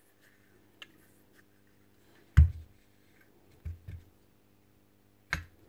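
Knocks and taps of the Makita 9069 grinder's aluminium gear housing and parts being handled: one sharp knock about two and a half seconds in, two softer ones about a second later, and another sharp knock near the end.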